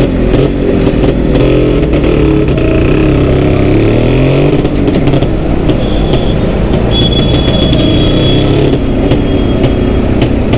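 1978 Yezdi B type's single-cylinder two-stroke engine running under way, its note rising and falling with the throttle.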